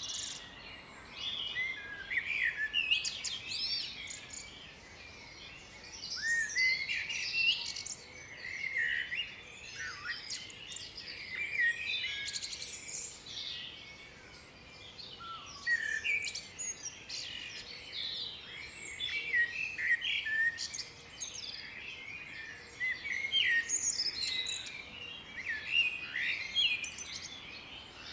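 Several songbirds singing and calling at once: a dense chorus of quick chirps and short whistled notes that swells and eases every few seconds.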